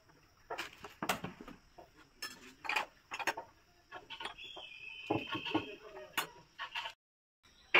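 Glassware being set down and moved on a wooden bench: a series of light clinks and knocks, glass against glass and wood, with a brief high tone about halfway.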